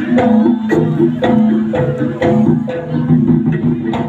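Jaranan music: a Javanese gamelan-style percussion ensemble of pitched metal instruments and drums playing a steady, repeating beat.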